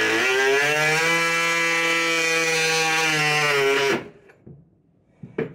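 Oscillating multi-tool plunge-cutting a short slot through thin plywood: a steady buzzing hum that rises slightly in pitch in the first second, then cuts off abruptly about four seconds in. A short click follows near the end.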